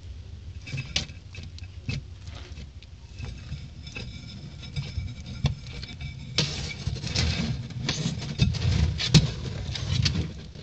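An iguana chewing and tearing a whole banana, peel and all: a run of short wet clicks and smacks. For the last few seconds, while it shakes the peel, this turns into a louder, denser crackling rustle. A low steady rumble sits beneath.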